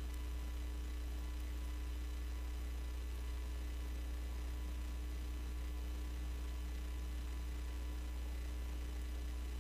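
Steady low electrical mains hum in the audio feed, unchanging throughout, with a fainter steady tone above it.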